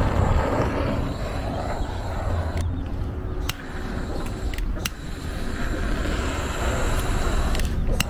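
Handheld torch blowing its flame into charcoal briquettes to light them: a steady rushing hiss, with wind rumbling on the microphone and a few sharp clicks.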